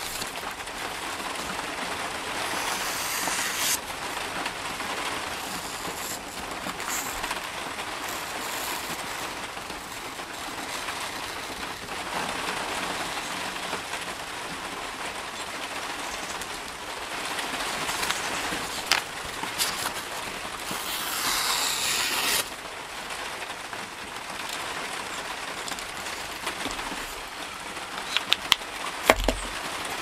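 A sharp knife slicing and rustling a sheet of printed paper, with two longer hissing cuts through the sheet, over a steady hiss. Near the end, a few sharp clicks as the knife is pushed into its hard plastic sheath.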